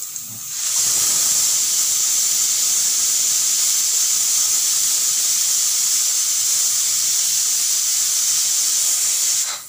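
Aluminium pressure cooker whistling on a gas flame: its weight valve lifts and steam escapes in one long, steady, high hiss, starting about a second in and cutting off shortly before the end. This is one of the whistles that show the cooker has come up to pressure.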